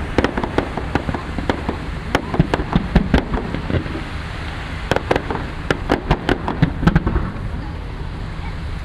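Fireworks display going off: many sharp bangs and crackles in quick succession over a steady low rumble, thinning out about seven seconds in.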